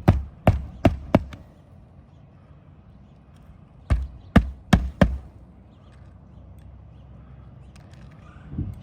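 Hammer striking roofing nails to fasten an asphalt shingle: two groups of four quick blows, one at the start and another about four seconds in.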